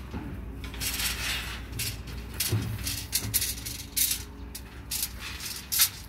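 Steel binding wire being twisted tight around rebar joints with pliers: a run of short metallic scrapes and clicks, one every second or less, the loudest just before the end.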